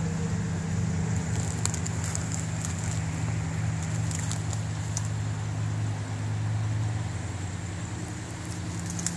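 A vehicle engine idling with a steady low hum, over the rushing hiss of a flooded river.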